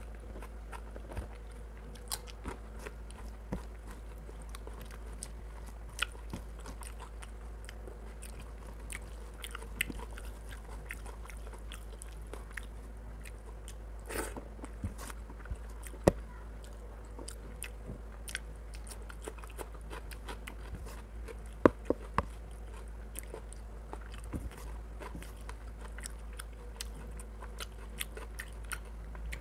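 Close-miked eating sounds of rice and chicken curry eaten by hand: wet chewing and mouth sounds with many scattered sharp clicks, a few of them much louder about halfway through and about three-quarters through. A steady low hum lies underneath.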